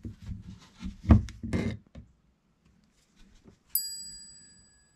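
Handling noise from a DeWalt DW735 planer motor's armature being drawn out of its plastic housing: scraping and a couple of sharp clicks. About three and a half seconds in comes a single bright metallic ding that rings out in several high tones and fades over about a second, as a metal part strikes something.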